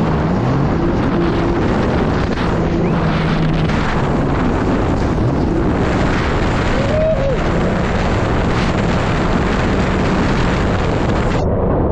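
Jet ski running at speed, its engine a low steady drone that shifts pitch now and then under a loud rush of wind and spray on the microphone. Near the end the sound suddenly turns duller.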